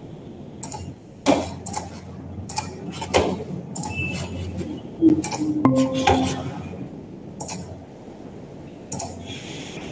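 A series of irregular clinks and knocks, about a dozen spread through the few seconds, with a brief ringing tone about five to six seconds in.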